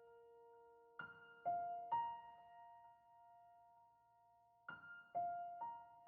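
Slow, gentle background piano music: single notes struck in two groups of three, each left to ring out.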